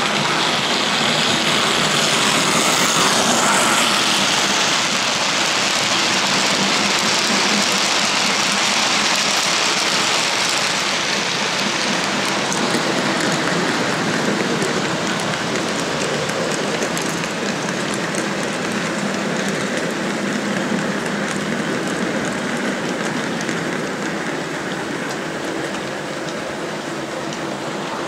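Model diesel locomotives and their wagons running along OO gauge track: a steady rushing run of motors and wheels on the rails. It is loudest in the first few seconds, with light, quick clicking of wheels over rail joints later on.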